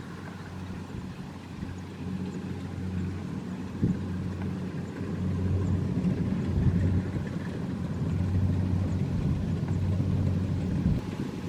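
Kubota DC-70 combine harvester's diesel engine running steadily under load, getting gradually louder over the first several seconds. A brief knock about four seconds in.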